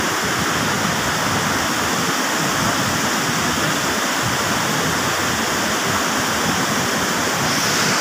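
Steady rush of a waterfall and its river running over rocks in white-water rapids.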